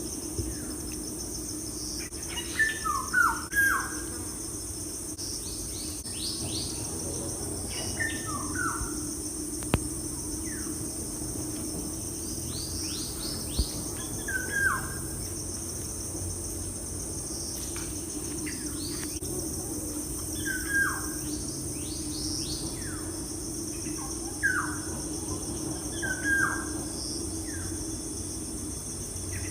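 Birds chirping in short clusters of quick, sharply falling notes every couple of seconds, over a steady high-pitched insect drone.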